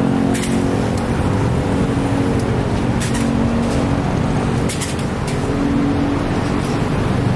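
Slow city traffic close by: cars and a motorcycle creeping past with engines running steadily over a constant road hum.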